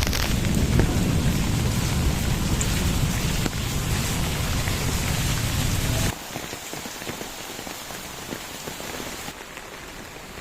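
Heavy rain falling steadily as a dense hiss, with a heavy low rumble underneath that cuts off suddenly about six seconds in. After that only a quieter rain hiss goes on.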